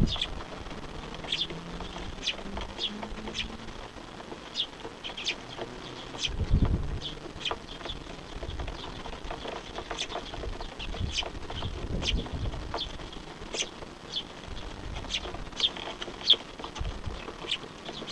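Small birds chirping: short, sharp high calls repeated irregularly, at times several a second. Under them runs a low rumble, with a brief louder swell about six and a half seconds in.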